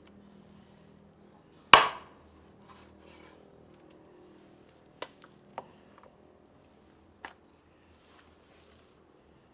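One loud, sharp chopping blow about two seconds in, followed by a few lighter knocks and clicks.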